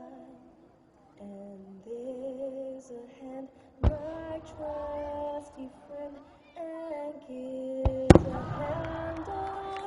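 A song sung by a woman over loudspeakers, with held, wavering notes, and two firework shells bursting with sharp bangs: one about four seconds in, and a louder one about eight seconds in.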